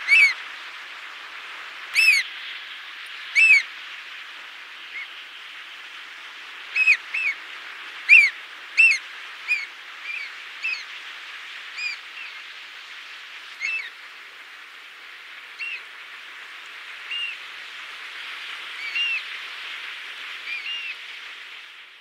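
Sooty oystercatcher calling: short, sharp piping notes at irregular intervals, some in quick pairs, loudest in the first half. A steady hiss of surf runs underneath.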